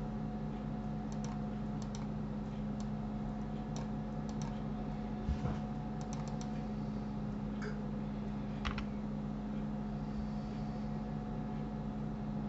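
Scattered computer keyboard keystrokes and mouse clicks, a dozen or so at irregular intervals, over a steady low electrical hum.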